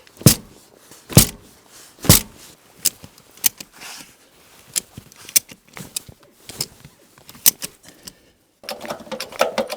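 A series of sharp, irregular clicks and knocks, the loudest three in the first two seconds or so, then a short lull near the end.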